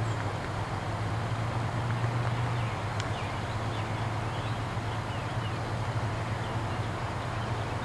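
Outdoor trackside ambience: a steady low hum with faint, scattered bird chirps and one small tick about three seconds in.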